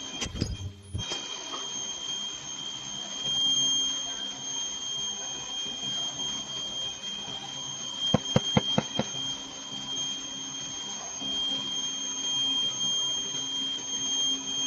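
Ultrasonic welding machine for hook-and-loop tape giving a steady high-pitched whine, with a few sharp clicks at the start and a quick run of about six clicks about eight seconds in.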